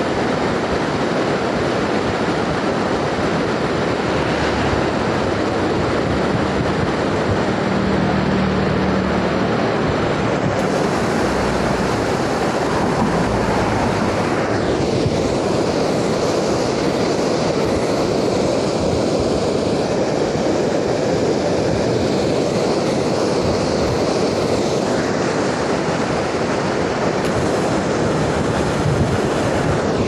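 Loud, steady rush of floodwater pouring over and around concrete slabs in a river, a continuous churning roar of white water.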